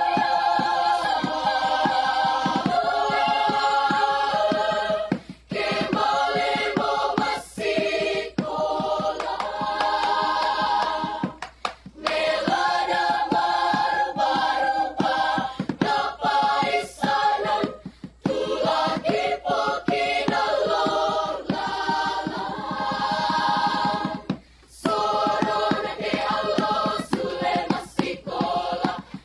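A school choir singing in harmony, many voices together, with short breaks between phrases.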